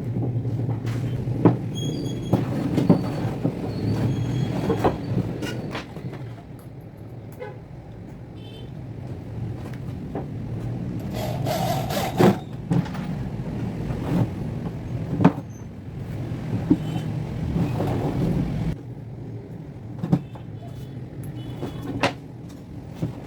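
Irregular knocks and clatter over a low steady rumble.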